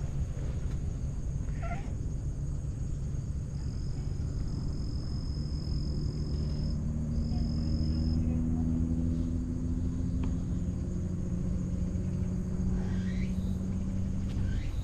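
A black-and-white cat purring close up, a steady low rumble, while it is stroked.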